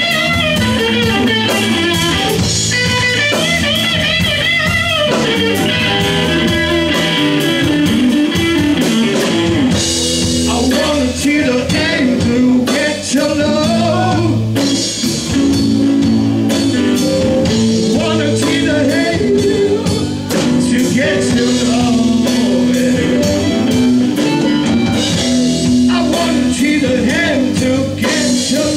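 A live blues band playing: electric guitar, electric bass and drum kit.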